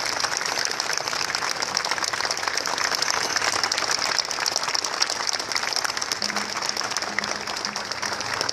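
A large crowd clapping in a long, steady round of applause.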